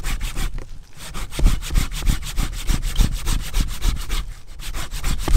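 Hand pull saw cutting through a thick ficus trunk in rapid back-and-forth strokes, with a short pause about half a second in and another near the end.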